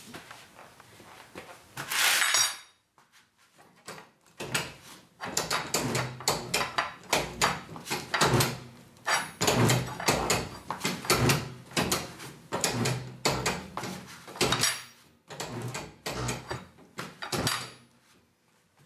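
A stiff run-flat tire's bead and sidewall being forced and levered against an alloy rim on a tire changer. A short scraping rub comes about two seconds in. Then a long run of rubbery thumps and scrapes, about two a second, as the bead is worked deeper into the rim's well.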